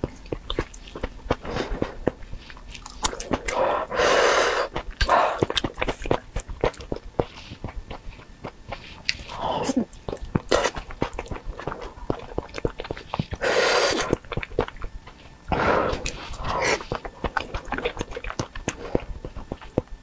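Close-miked eating sounds: wet chewing and smacking mouth clicks while eating soft chunks from a chili-oil stew, with two longer, loud noisy mouth sounds about 4 and 14 seconds in.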